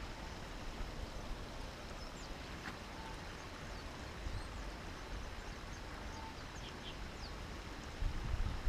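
Quiet outdoor ambience: a steady low rumble and hiss, with a few faint high bird chirps and a short faint tone about every three seconds.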